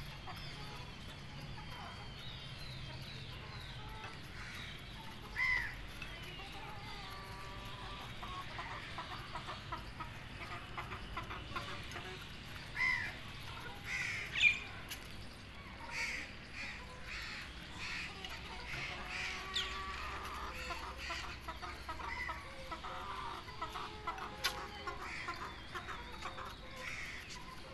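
Young chickens giving short, scattered calls and clucks while pecking grain from a feeding pan, with many light taps in between.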